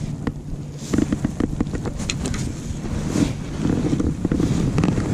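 Wind buffeting the microphone in a low rumble, with irregular knocks and rustling as a just-landed bass and the landing net are handled in an inflatable boat.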